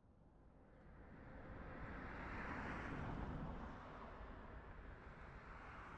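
A vehicle passing on the road: a faint rush of road noise that swells to a peak about two to three seconds in, then eases off to a lower steady level.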